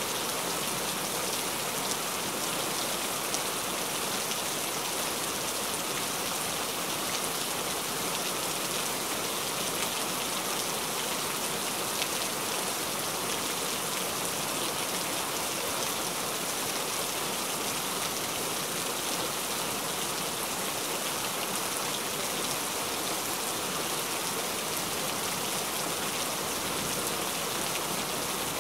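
Steady rain falling, an even dense hiss with a few faint individual drop taps.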